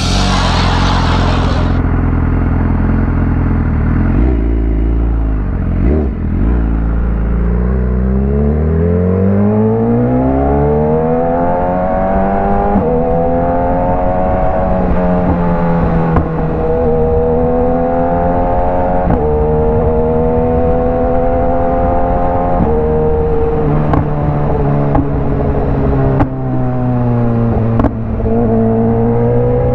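BMW S1000RR's inline-four engine being ridden. It runs low and steady for several seconds, then climbs steeply in pitch under throttle and keeps rising and falling, with a few brief dips near the end.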